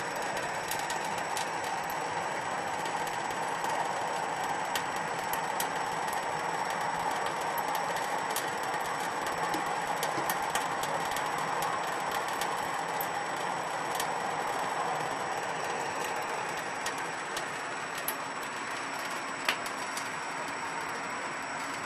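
Thin stream of tap water running steadily from a kitchen faucet into a stainless steel sink, with scattered faint ticks and one sharper tick near the end.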